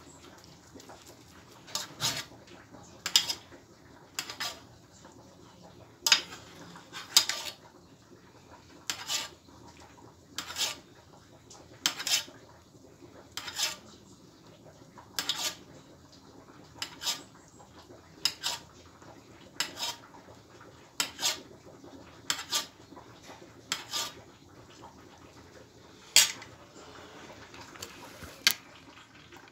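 Metal spoon clinking against a round aluminium baking tray about every second and a half as it scoops syrup from the tray's edge over a syrup-soaked bread dessert.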